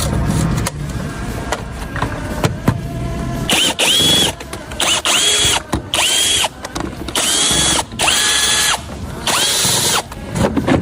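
Power tool running in about six short bursts, each one spinning up to a steady high whine and winding down, with a few clicks of handling before the first burst.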